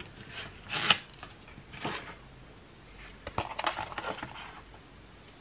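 Handling noise from a woven nylon watch band being pulled out of its cardboard packaging tray. There are a few short scraping rustles and light clicks, the sharpest about a second in and a quick cluster a little past the middle.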